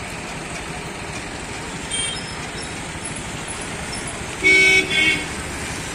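Steady road-traffic rumble as loaded sugarcane tractor-trailers pass, with a vehicle horn tooting twice in quick succession about four and a half seconds in.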